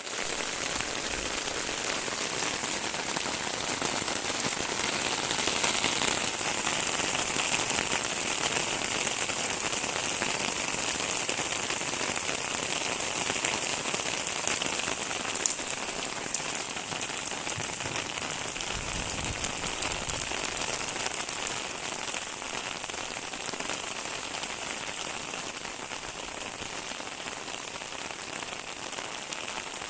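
Steady rain falling and pattering on surfaces, a dense even hiss with scattered individual drop taps, easing slightly after the first ten seconds or so. A brief low rumble sounds about two-thirds of the way through.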